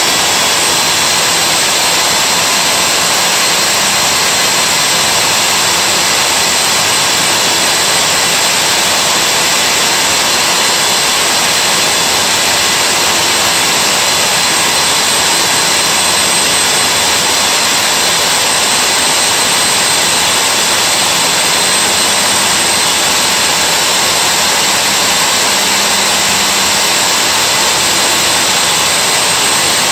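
Milwaukee core drill running steadily as it bores a core hole into the wall: an unbroken, even motor whine over a wide noise, with no let-up.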